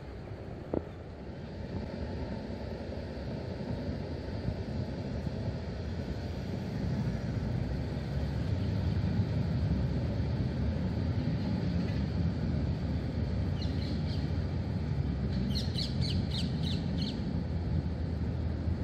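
Siemens Avenio low-floor tram passing close by: a low rumble of wheels on rail that builds over the first several seconds and stays steady as the cars go past. Near the end a bird calls several times in quick succession.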